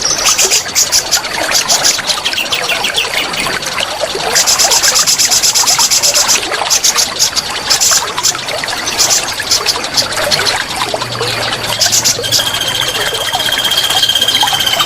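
Songbirds singing loud, rapid trills of evenly repeated high notes over the steady rush of a waterfall's running water. Near the end one bird holds a single high whistled note for about two seconds.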